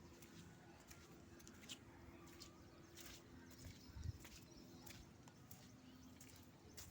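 Near silence: faint room tone with a low steady hum, scattered soft clicks and one dull knock about four seconds in.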